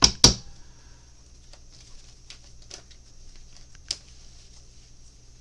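Tarot cards being handled and laid down: two sharp snaps at the start, then scattered light clicks and taps, with one sharper click near the end.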